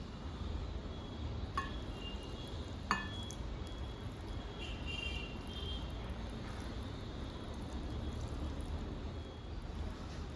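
Kitchenware clinking: two light clinks with a brief ring about one and a half and three seconds in, then a few fainter clinks, over a steady low hum.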